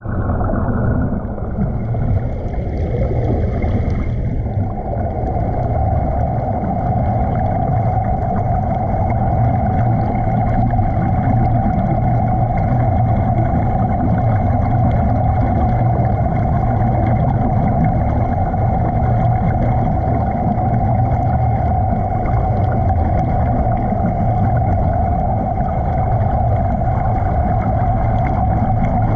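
Underwater ambience recorded by a submerged camera: a steady low drone, with a constant mid-pitched hum settling in about five seconds in.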